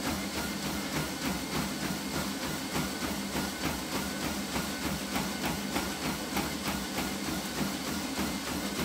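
Running footfalls striking a treadmill deck at about three steps a second, over the steady hum of the treadmill's motor and belt.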